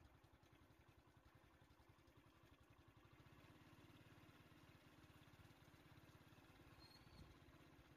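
Faint low hum of an idling vehicle engine that gets a little louder about three seconds in.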